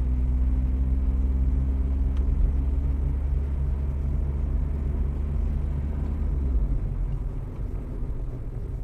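Car engine and road noise heard from inside the cabin on a dashcam: a steady low drone with a hum in it, which eases a little about six and a half seconds in.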